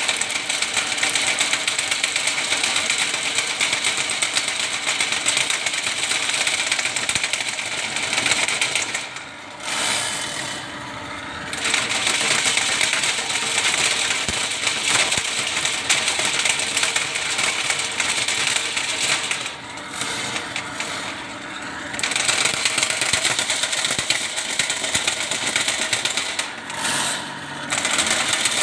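Ridgid drain-cleaning machine running, its spinning spiral cable rattling as it is fed into a blocked drain line. The machine drops off briefly three times, about ten, twenty and twenty-seven seconds in.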